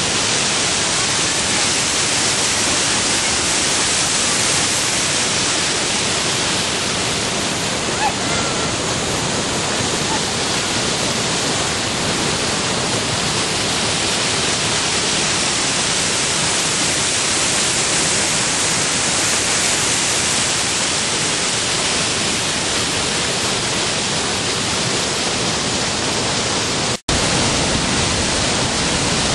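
Muddy floodwater in a flash flood pouring over a rock ledge in a desert wadi: the steady rush of a waterfall flowing powerfully, broken once by a split-second gap near the end.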